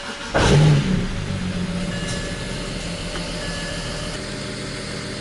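BMW N54 twin-turbo inline-six catching on a cold start and flaring up briefly about half a second in, then settling into a steady idle. It is the first start after a month and a half standing, on freshly fitted ignition coils and spark plugs.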